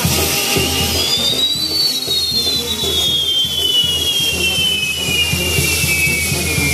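Castillo fireworks burning: spinning firework wheels give off a loud, steady hissing rush. Over it a whistle in two close tones rises over the first second or so, then glides slowly down in pitch.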